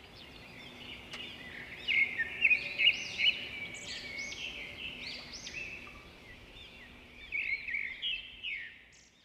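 Small birds chirping and twittering in quick rising-and-falling calls over a faint steady hum, with busier bursts about two seconds in and near the end; it stops abruptly.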